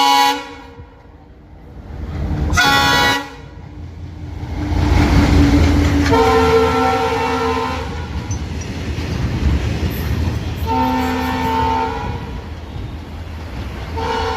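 WDM3A diesel locomotive sounding its horn in a series of blasts of about a second each, over the low chugging of its engine and the rumble of the train. The rumble swells loudest about a third of the way in as the train passes.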